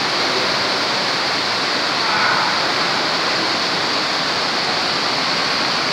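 Varone waterfall pouring down: a loud, steady rush of falling water.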